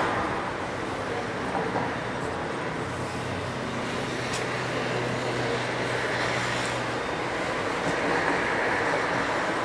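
Engines of slow-moving street traffic, a van and a box truck crawling along at low speed. A steady low engine hum fades out about seven seconds in.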